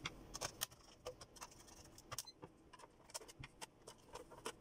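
Faint, scattered clicks and light taps of plastic being handled: the projector's lamp cover being fitted in place and its screw driven in with a hand screwdriver.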